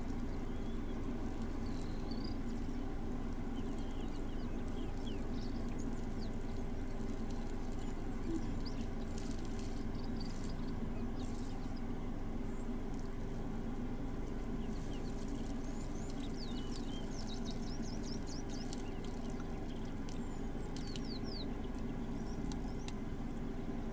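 Bush ambience: small birds calling in quick, high, sliding chirps, more often in the second half, over a steady low hum, with a few brief crackles.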